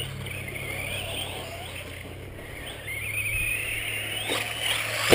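Radio-controlled off-road car heard from its onboard camera: a high motor whine that wavers, then rises in pitch from about three seconds in, over a steady low hum.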